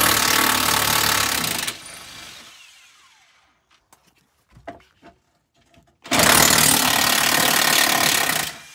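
Cordless impact wrench running in two bursts on a bolt under a pickup truck, loosening the step-bar mounting bolts: the first burst stops about two seconds in and winds down, then after a pause with a few small clicks it runs again for about two and a half seconds near the end.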